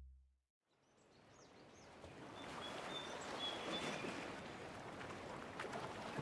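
Outdoor ambience fades in after about a second of silence: a steady hiss with a few faint bird chirps.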